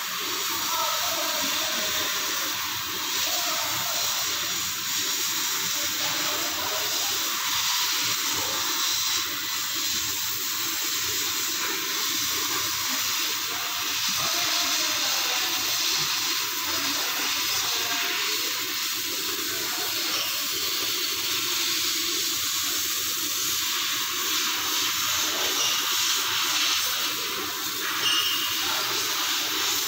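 CNC laser cutting machine cutting through metal plate, with a steady hiss from the assist-gas jet at the cutting nozzle.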